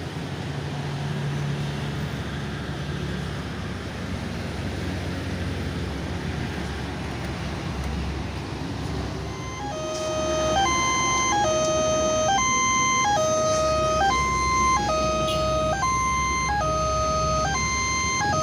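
Electronic warning siren of a railway level crossing, starting about halfway through: a repeating pattern of steady tones stepping between a low and a high pitch, over a steady rumble of road traffic.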